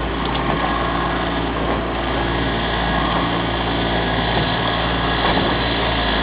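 Fishing boat's engine running steadily, a constant low hum with water and wind noise over it.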